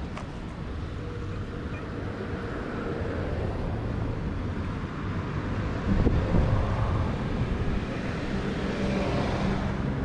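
Car traffic on the road alongside, an engine hum that grows stronger near the end as a car comes closer, with wind on the microphone and a short bump about six seconds in.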